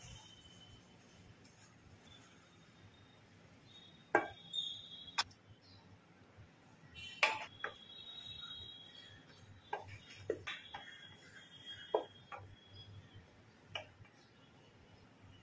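Wooden spatula scraping and knocking against a stainless steel bowl while mixing crumbly rice flour dough, with about seven scattered knocks. The bowl rings briefly after the sharper ones.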